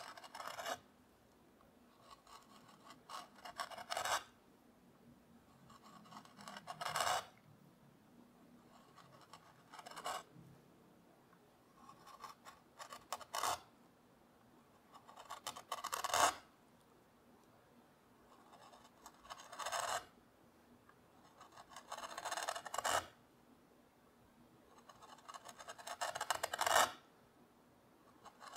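A small hand carving tool cutting fine lines into walnut, about nine strokes roughly three seconds apart. Each cut is a scraping stroke that builds up and ends sharply as the chip breaks free.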